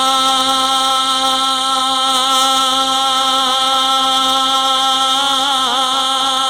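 A man singing a naat (Punjabi devotional song) into a microphone through a sound system. He holds one long steady note, with a wavering ornament near the end.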